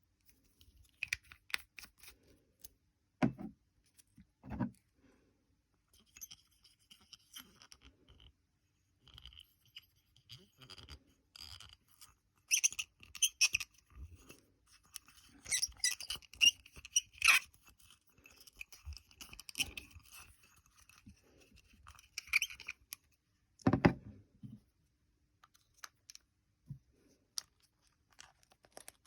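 Small objects being handled: scattered clicks, scratches and crinkles, busiest in the middle, with a few dull knocks at about 3, 5 and 24 seconds in.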